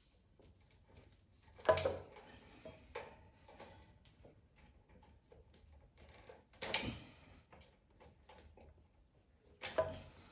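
Plastic clicks and clatters of an electric fan's cage being pulled and worked at by hand: small ticks with three louder clacks, about two, seven and ten seconds in.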